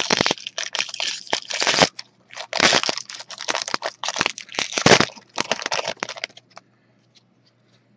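Foil wrapper of a Panini Prizm football card pack crinkling and tearing open in the hands, a dense run of sharp crackles that stops about six and a half seconds in.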